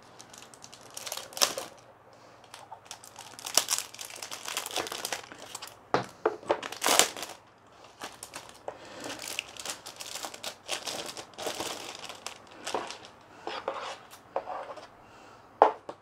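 Packaging of a new keyboard crinkling and rustling as it is unwrapped, in irregular handling bursts with a few sharper, louder crackles.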